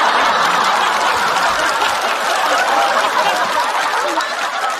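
Studio audience laughing and clapping, the crowd noise easing off slightly toward the end.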